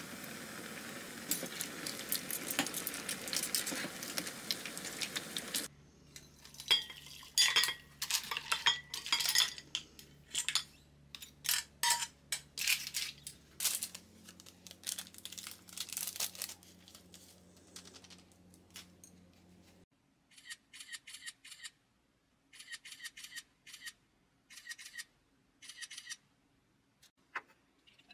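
Food hissing steadily in a pot or pan on the stove for about six seconds, then cutoff, followed by a run of sharp clinks and taps of utensils against dishes that grow fainter and sparser over the last several seconds.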